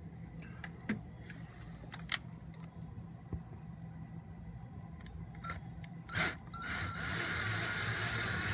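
A few sharp clicks and knocks, then, about six and a half seconds in, a cordless drill/driver starts and runs at a steady whine, driving a screw to fasten the new RV door latch.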